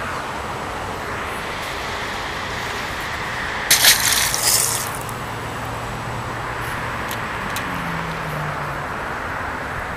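A peacock bass hitting the water with a short, loud splash about four seconds in as it is released, over steady background noise.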